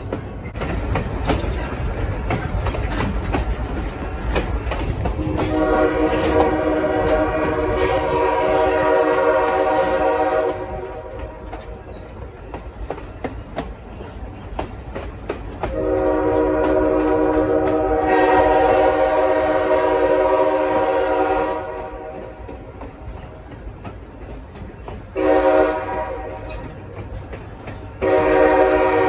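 Nathan K5L five-chime air horn on a moving locomotive sounding the grade-crossing signal: two long blasts, a short one, and a final long blast beginning near the end, each a steady multi-note chord. Under the horn the train's running rumble and wheel clatter on the rails go on throughout.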